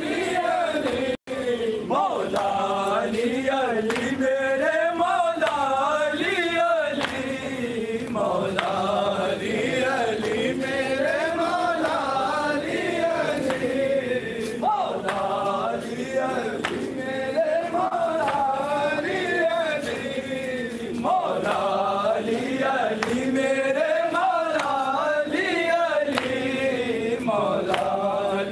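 Men's voices chanting a nauha, an Urdu mourning lament for Imam Ali, in a wavering melodic recitation whose phrases repeat about every seven seconds. The sound drops out for a moment about a second in.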